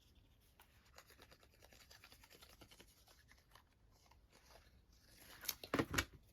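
Paper and card being handled and pressed down on a craft mat: faint rustling and small clicks, then two louder taps near the end.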